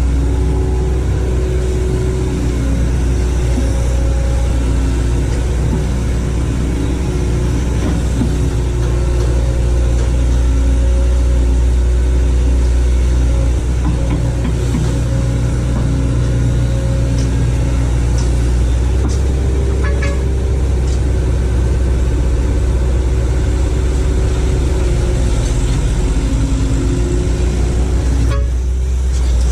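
Hitachi excavator's diesel engine running steadily under load, a loud low drone with a pitched hum over it.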